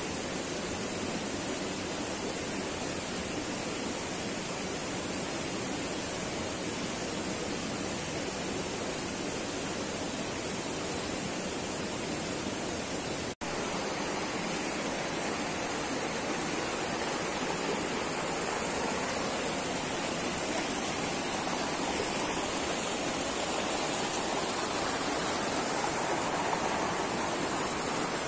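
Rocky forest river rushing over boulders and small rapids: a steady, even rush of water, broken once by a very brief dropout near the middle.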